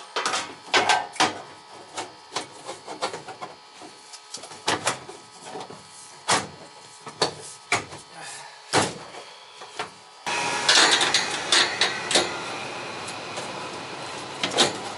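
Irregular clicks, knocks and rattles of metal parts and tools being handled at a furnace cabinet. About ten seconds in, a steady mechanical running noise starts abruptly, with a few more clicks over it.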